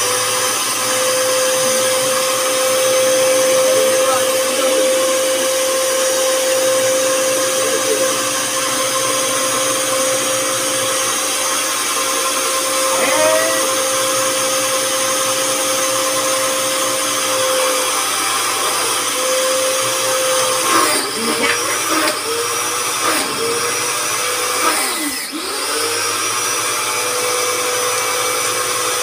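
Electric high-pressure washer running: a loud, steady motor-and-pump whine. In the second half the pitch sags briefly and recovers several times.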